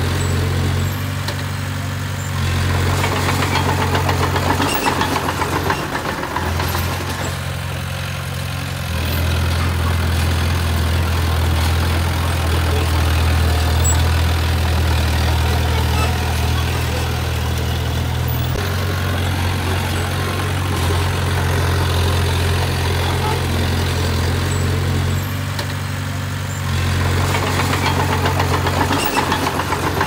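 Bulldozer's diesel engine running with a steady low hum. The level rises and falls as the machine works, with louder, noisier stretches about three seconds in and again near the end.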